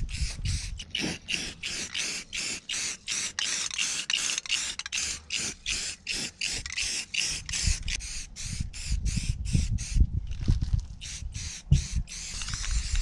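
Rust-Oleum camouflage aerosol spray paint can hissing in quick pulses, about three a second, as paint is sprayed onto a canoe hull. Wind rumbles on the microphone underneath and gusts harder near the end.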